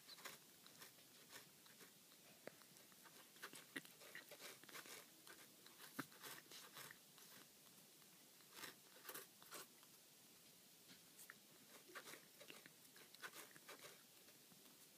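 Domestic cat licking the inside of a plastic laundry basket: faint, irregular clicks of its tongue on the plastic.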